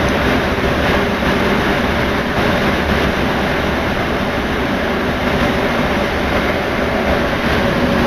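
Cabin noise inside a rubber-tyred MP 89 CA Paris Métro train running between stations: a loud, steady rumble and rush. A faint whine comes in near the end.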